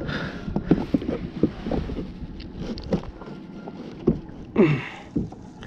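Water lapping against a plastic fishing kayak's hull, with irregular knocks and scrapes on the deck as a freshly landed small snapper is handled.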